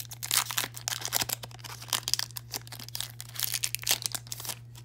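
Foil Pokémon booster pack wrapper being torn open and crinkled by hand: a run of sharp crackles that stops just before the end.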